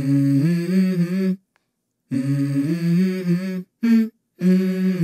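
A voice humming a slow melody in short phrases, each broken off by a sudden dead silence.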